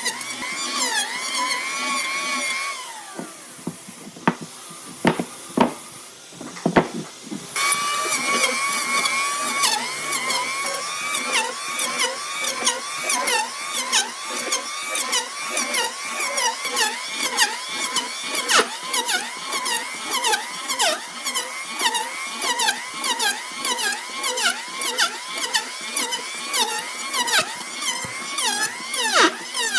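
A high-speed power tool motor working wood, its whine dipping in pitch about twice a second as it bites under load. It stops about three seconds in, leaving a few sharp knocks, then starts again about seven seconds in.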